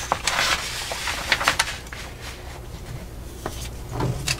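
Paper rustling and crackling as a folded semi-gloss instruction sheet is handled and shifted by hand, with several sharp crackles in the first two seconds and another short rustle about four seconds in.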